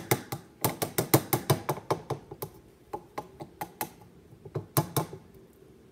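A metal teaspoon clinking rapidly against a glass jar while honey is spooned out. The taps come about six a second at first, thin out, then come in a last short flurry near the end.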